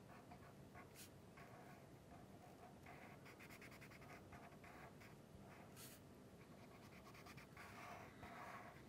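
Faint scratching of a felt-tip marker on paper in short, repeated colouring strokes, with two sharp ticks.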